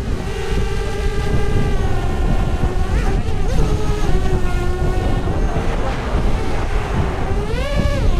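High-pitched whine of a small electric propeller motor holding a fairly steady pitch that sags slightly, then rises sharply and drops back near the end, over a low rumble.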